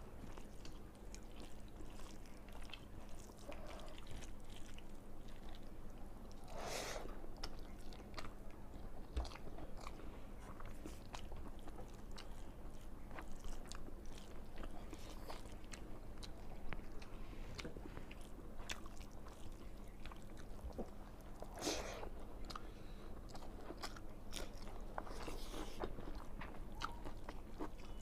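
Close-up eating sounds: a person chewing and biting, with many small, irregular crunchy clicks and two louder noisy swells.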